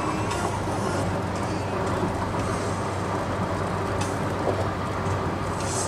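Steady road noise inside a car cruising on a highway: tyre noise on the road surface over a constant low engine drone.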